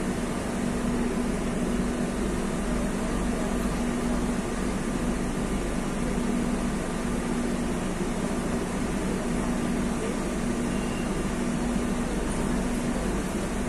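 Steady hum of a Madrid Metro Line 2 train standing at a platform with its doors open, heard from inside the carriage, with a low steady tone in it.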